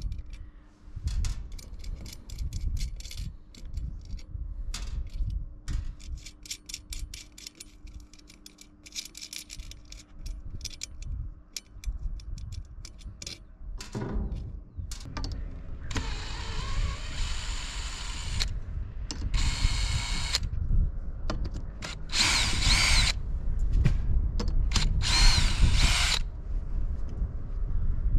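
Light metallic clicks and clinks of small hardware being handled, then a cordless drill running in four bursts of one to two seconds in the second half, drilling into the metal hatch frame.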